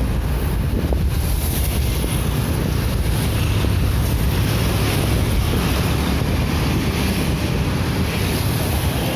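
Wind buffeting the microphone: a steady, heavy rumbling rush of noise.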